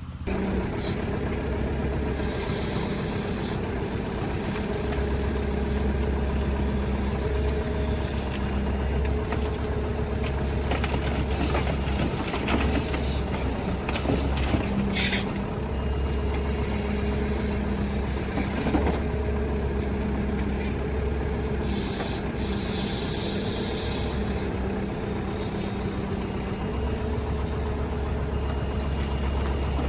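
Heavy diesel machinery running, the deep engine note strengthening and easing every few seconds as it works, with scattered clanks and scrapes, most of them around the middle.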